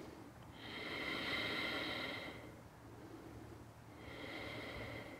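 A woman breathing slowly and audibly: two long breaths, the first starting about half a second in and lasting about two seconds, the second starting near the end.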